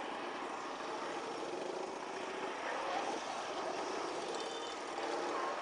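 Steady street noise of traffic running past, with faint voices in the background.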